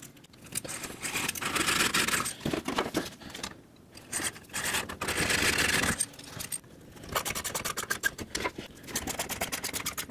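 Hand tool boring and driving silicon bronze screws into teak chair slats: runs of quick clicking alternate with rasping scrapes, broken by short pauses.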